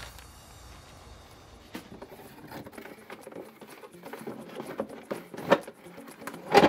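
Handling noise from toy packaging: plastic-wrapped Play-Doh cans set aside and a cardboard box gripped and shifted. It is a run of light irregular taps and rustles, with two louder knocks, one about five and a half seconds in and one at the very end.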